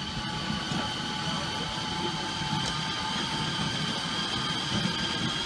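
A small tour train running on board, with a steady whine of several high tones over a low rumble.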